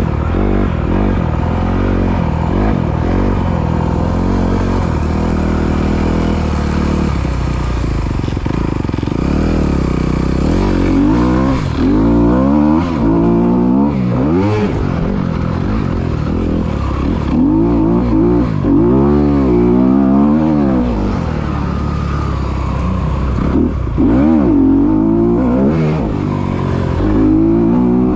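Dirt bike engine being ridden hard, pitch steadier for the first several seconds, then rising and falling again and again as the throttle is opened and closed.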